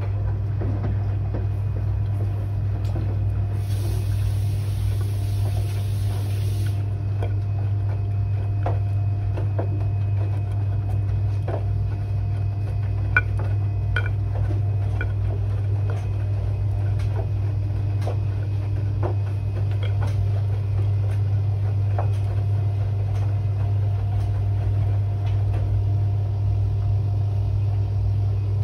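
Washing machine at the start of a Quick 30 programme at 30 °C: a steady low hum with scattered light clicks and knocks from inside the drum. A hiss of about three seconds comes in about four seconds in.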